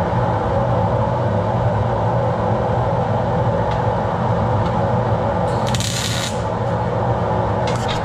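Steady machine hum from shop equipment, with one MIG tack weld on a washer in a welding jig about five and a half seconds in, a short hiss under a second long.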